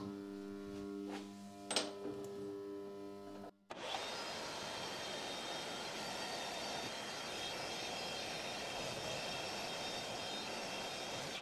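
Maho 400E CNC milling machine running in sped-up footage. At first its spindle and drives give a steady whine with a couple of sharp clicks. After a short break comes a steady hiss of flood coolant spraying as the end mill cuts.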